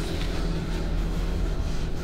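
A low, steady rumbling drone with no sharp hits.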